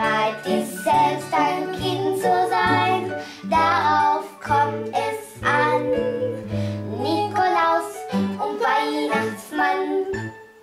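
Children singing a German Christmas song together over an instrumental backing with steady bass notes.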